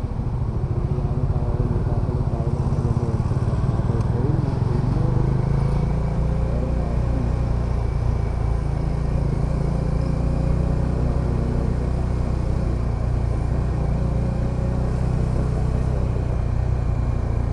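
Bajaj Dominar 400 motorcycle riding along, its single-cylinder engine running steadily with road noise.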